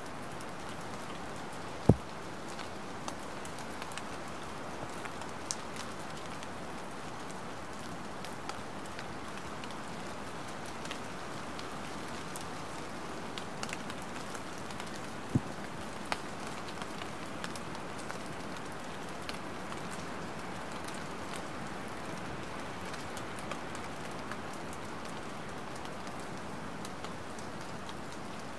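Light rain falling steadily, an even hiss with scattered drips and ticks. One sharp, louder drop lands about two seconds in and another about fifteen seconds in.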